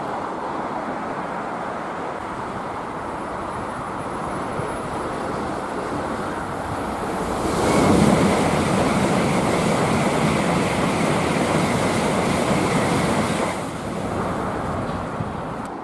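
A train passing at speed: a steady rush swells abruptly about seven seconds in into a loud, wide rushing noise that holds for about six seconds, then falls back.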